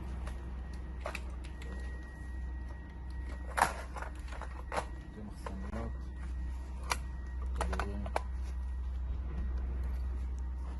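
Scattered clicks and knocks, as of objects being handled, over a steady low hum, with the sharpest knock about three and a half seconds in.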